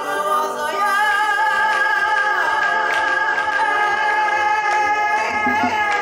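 Live psychedelic Latin-American-rooted band music with a man singing one long held note into a microphone, sliding in pitch as it begins.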